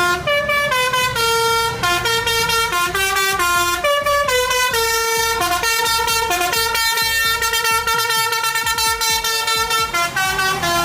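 Basuri telolet horn, a bus's multi-tone musical air horn, playing a quick tune without a break, its notes stepping up and down a few times a second over a low rumble.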